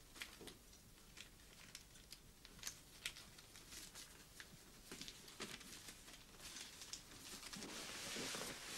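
Faint rustling and crinkling of paper banknotes being handled, with scattered small clicks. Near the end a softer, longer swish of cloth as a jacket is pulled on.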